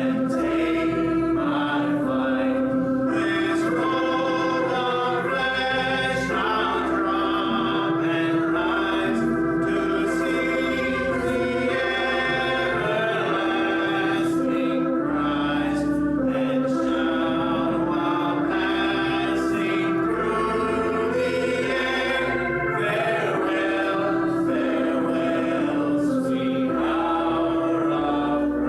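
Gospel music: sustained chords, organ-like, with voices singing over them and the chords changing every second or two.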